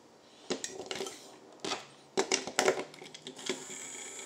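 A battery is clicked into a small plastic toy-train drive unit, giving a run of sharp plastic clicks and rattles. About three and a half seconds in, its small electric motor starts running with a steady high whine as the wheels spin.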